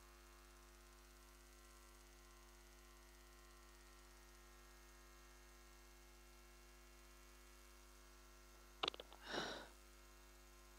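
Near silence with a steady low electrical hum, and a few faint clicks and a brief soft noise about nine seconds in.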